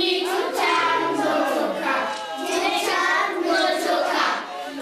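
A group of young schoolchildren singing together in chorus, with hand claps.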